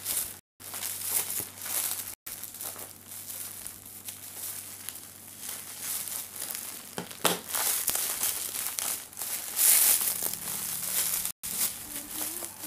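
Clear plastic parcel packaging crinkling and rustling as it is handled and worked open by hand.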